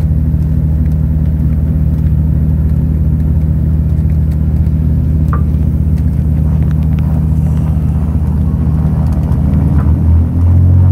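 A light propeller aircraft's piston engine drones steadily at one pitch, heard inside the cockpit, and grows louder near the end.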